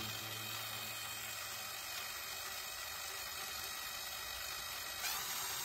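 Cordless drill spinning a large sprocket shaft through a roller chain to test-run it in its new bearing brackets: a steady whir with a faint whine, swelling briefly near the end.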